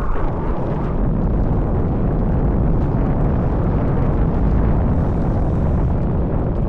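Wind buffeting the camera's microphone over the steady rumble of an electric scooter riding over rough off-road ground.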